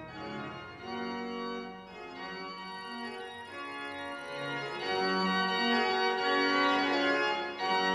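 Pipe organ playing slow, sustained chords, the notes changing every second or so and swelling louder about five seconds in.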